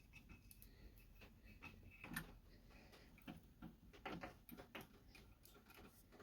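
Near silence with a few faint, scattered clicks and light taps.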